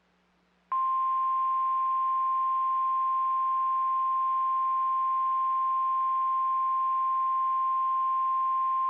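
NOAA Weather Radio 1050 Hz warning alarm tone, the alert that precedes a warning broadcast. It is one loud, steady, unbroken tone that switches on abruptly under a second in.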